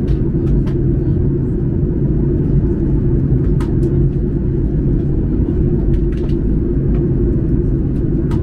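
Steady cabin noise inside a Boeing 737-800 in flight: a low, even drone of its CFM56 engines and the airflow past the fuselage, heard from a seat behind the wing.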